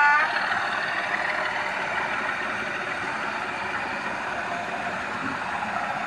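Model freight train rolling past: a steady rattling rush of the wagons' wheels running over the track. The model diesel locomotive's sound-fitted horn ends just at the start.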